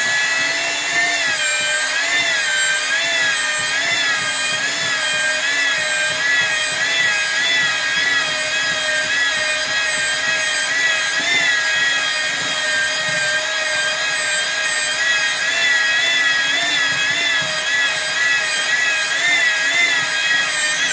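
Electric drill with a mixing paddle churning tile adhesive mortar in a bucket. Its motor whines steadily under load, the pitch wavering up and down about one and a half times a second as the thick mix drags on the paddle.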